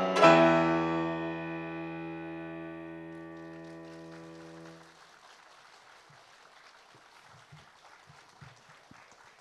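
Closing chord of the piece struck on a digital piano with a guzheng, about half a second in, ringing out and fading steadily for about four seconds before it stops. After that only faint hall noise remains.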